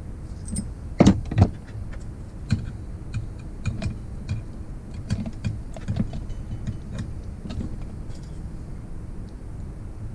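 Metal hand tools and small engine parts clinking and knocking while a motorized-bicycle engine is taken apart. Two loud knocks come about a second in, followed by a run of lighter metallic clicks.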